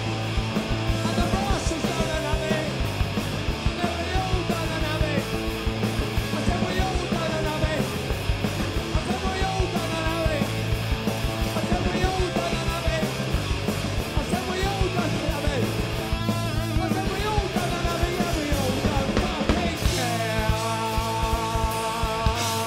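Punk rock band playing live, with sung and shouted vocals over electric guitar, bass and drums. About 20 seconds in the drums drop out and a guitar chord is left ringing as the song ends.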